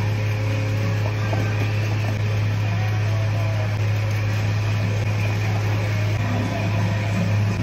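A steady low mechanical hum that runs on unchanged.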